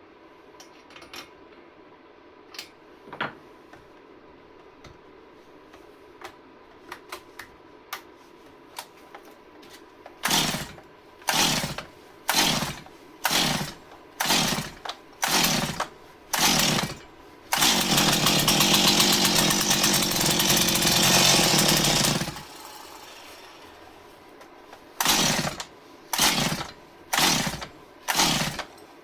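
Stihl MS 170 two-stroke chainsaw being pull-started: a few light clicks, then seven quick pulls of the starter cord about a second apart. The engine then catches and runs for about five seconds before dying away, followed by four more pulls without it firing, the hard-starting the saw is known for.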